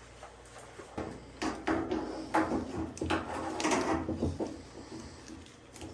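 Knocks and scraping of washing-machine parts being handled, as a suspension rod is worked on inside the cabinet, in a busy stretch from about a second in until shortly before the end.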